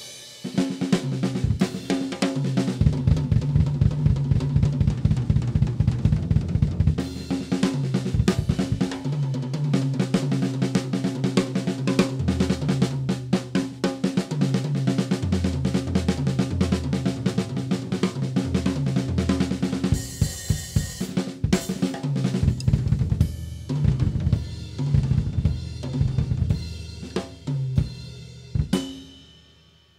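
PDP MX maple-shell drum kit played fast, with snare, bass drum and hi-hat under the cymbals of a 13-inch A Custom hi-hat and ping ride. Runs down the toms fill the middle, a cymbal crash comes about twenty seconds in, and the playing thins out to a last hit that rings away near the end.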